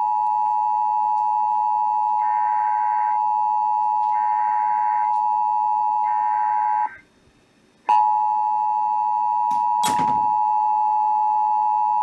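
EAS attention signal, the steady two-tone alert (853 and 960 Hz) of a broadcast Required Monthly Test, from a radio's speaker. Three short bursts of SAME digital data code sound over it about 2, 4 and 6 seconds in. The tone cuts out for about a second, then resumes with a brief burst of noise near the ten-second mark.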